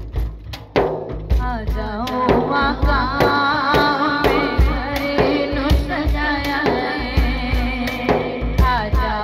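A woman singing a kalaam (devotional poem) with a wavering, ornamented melody, accompanying herself on a large frame drum struck by hand in a steady rhythm with deep thumps. The drum strokes start first and the voice comes in about a second later.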